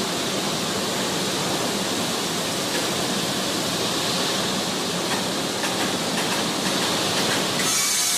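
Steady rushing noise of factory machinery in a granite works, even and without a clear rhythm or tone.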